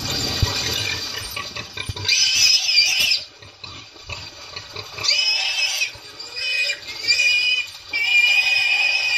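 Warthog squealing in distress as African wild dogs seize it in the water: long high-pitched squeals about two seconds in, again about five seconds in, and near the end, after splashing water at the start.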